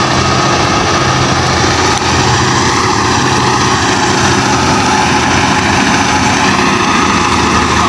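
Combine harvester's diesel engine running steadily with an even, unbroken drone.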